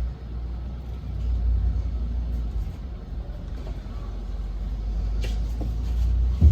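Steady low rumble with a few faint ticks and a sharp knock near the end.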